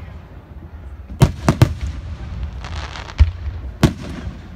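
Aerial firework shells bursting in a series of sharp bangs: three in quick succession about a second in, then single bangs about three and four seconds in, with a short hiss between them.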